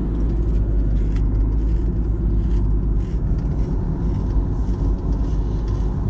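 Steady low rumble of a car being driven, heard from inside the cabin: road and engine noise.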